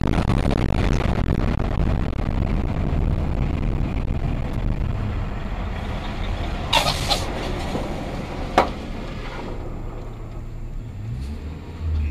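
Steady road and engine noise heard from inside a moving vehicle's cab, slowly getting quieter. Two sharp clicks come about seven and eight and a half seconds in, and a short low rumble comes near the end.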